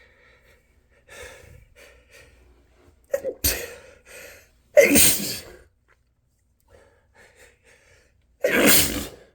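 A man sneezing hard three times during an allergy sneezing fit, about three and a half, five and eight and a half seconds in, with gasping breaths between; the middle sneeze is the loudest.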